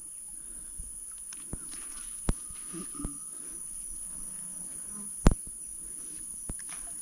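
Steady, high-pitched chorus of insects, with a few sharp clicks or knocks on top, the loudest a little over five seconds in.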